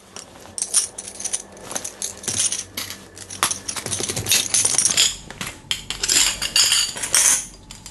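Shoe-rack poles and their fittings clinking and knocking as they are handled and slid together, an irregular run of light clinks.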